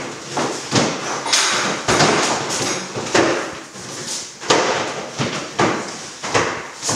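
Wooden drawers being yanked open and shut and rummaged through: a quick run of sharp knocks and sliding scrapes, one or two a second.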